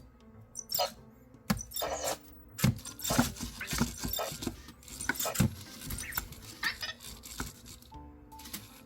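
EMO desk robot's small motors whirring and clicking, mixed with short electronic chirps, as it keeps repeating the same movement without stopping: a glitch loop after being taken off its charger.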